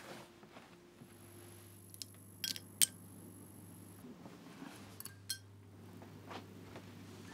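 Small hard objects handled by hand, giving a few sharp clicks and light clinks, the loudest two just before the middle and another small cluster a little past it. A low steady hum runs underneath from about a second in.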